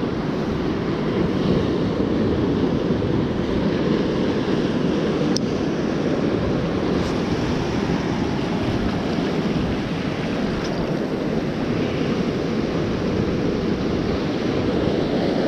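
Ocean surf washing over a rock shelf, a steady rush of waves, with some wind on the microphone. A single faint click about five seconds in.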